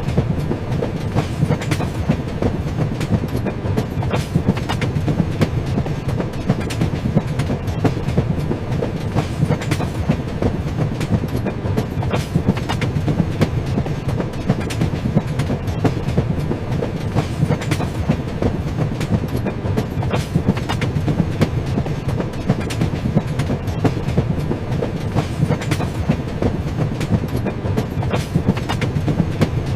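Train running along the track: a steady low rumble with dense, rapid clicks and clacks of the wheels over the rails.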